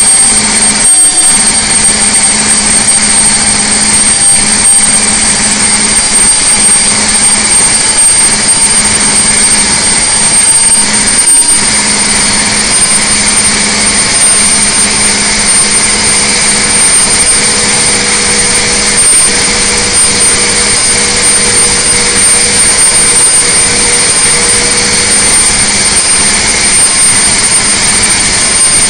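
Detroit Diesel Series 60 inline-six diesel running at full throttle under heavy dynamometer load, a loud steady drone as it is held near 2,000 rpm while making about 600 hp.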